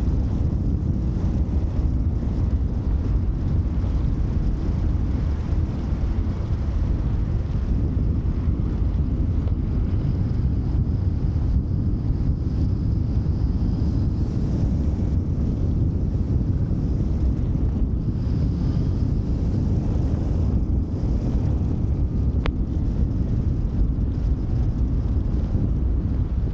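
Airflow buffeting the microphone of a camera mounted on a gliding hang glider's wing: a steady, low wind rush.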